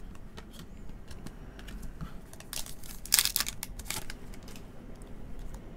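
The wrapper of a 2023 Topps Chrome Platinum trading-card pack crinkling and tearing as it is opened by hand. Scattered light crackles give way to a cluster of louder crinkling between about two and a half and four seconds in.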